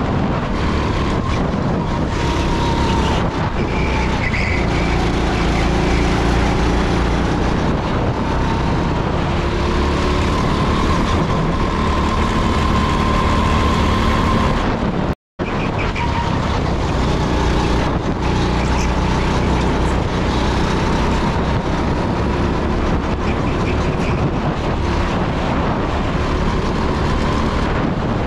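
Rental go-kart engine running steadily at speed, heard on board, with a thin whine that rises and falls slightly. The sound cuts out completely for a split second about halfway through.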